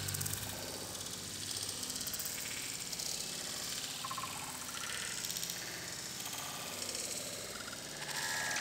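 Light rain falling on wet pavement and puddles: a soft, steady hiss.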